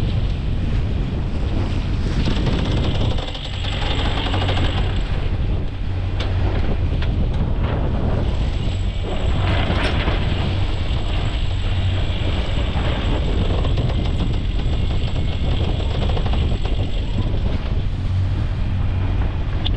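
Electric sailboat winch running steadily, hauling the in-mast roller-furling mainsail out, with a fine ratchet-like clicking and wind noise on the microphone.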